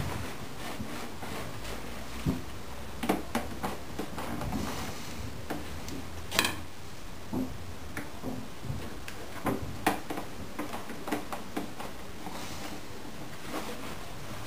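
Irregular small clicks and taps of hands working binding strips and masking tape along the edge of an archtop guitar body, with one sharper, louder click about six and a half seconds in, over a steady low hum.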